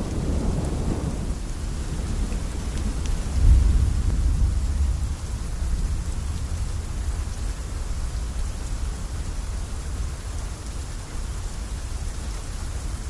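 Steady rain with low rumbles of thunder, the heaviest swell of rumble about three and a half seconds in, easing off afterwards.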